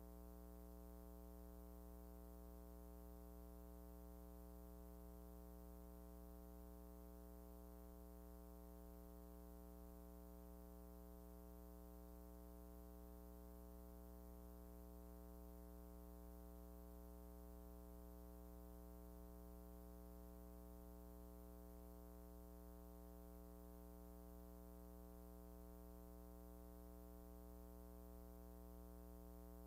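Near silence: a faint, steady electrical hum with a stack of overtones, unchanging throughout.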